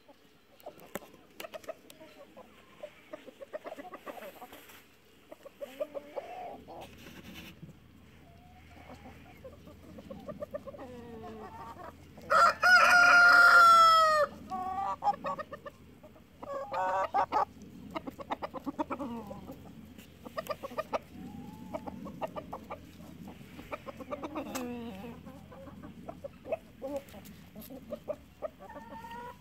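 A flock of chickens clucking, with a rooster crowing loudly about twelve seconds in, a long call that falls in pitch at its end.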